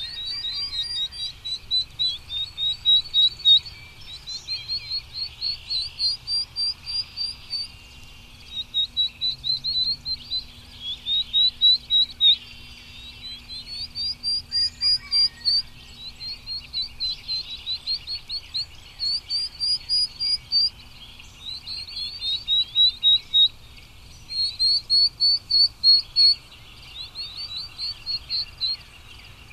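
A songbird singing repeated phrases, each a quick run of eight to ten high chirping notes lasting a second or two, with short pauses between phrases.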